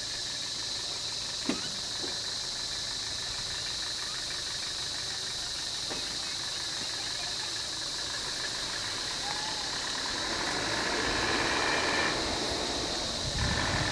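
Vehicle engines idling steadily, with a steady high-pitched tone over them; the low engine rumble grows louder over the last few seconds.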